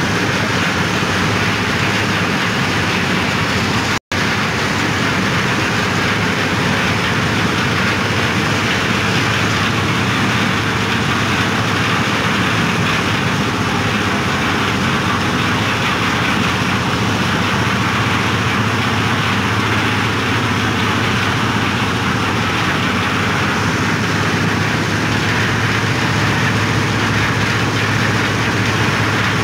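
Portable concrete mixer with a lift hopper, its engine running steadily with a low hum. The sound breaks off for a moment about four seconds in.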